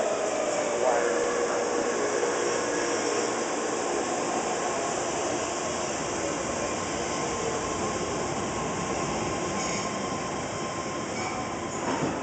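BART train braking to a stop at an underground platform. A whine falls in pitch over steady rail and wheel noise that slowly grows quieter, and a short knock comes near the end.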